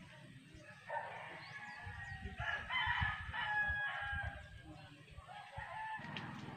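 A rooster crowing: one long call, starting about a second in and lasting about three seconds.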